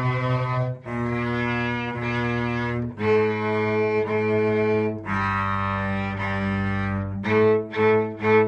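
Cello and violin playing a slow beginner exercise together an octave apart, long bowed notes held about two seconds each, then shorter notes about every half second from around seven seconds in.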